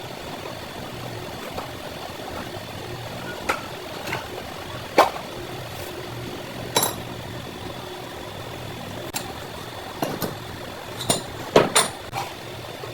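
Metal tools and parts clinking and knocking against each other, about ten separate strikes at uneven intervals, one with a short metallic ring, over a steady workshop hum.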